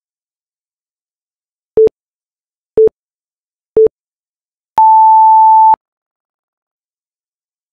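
Electronic interval-timer beeps: three short, lower beeps a second apart counting down, then one long, higher beep of about a second, signalling the start of a work interval.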